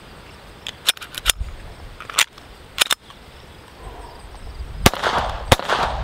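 Hi-Point CF380 .380 pistol: light metallic clicks of the gun being handled, then sharp gunshots. The two loudest shots come about half a second apart near the end.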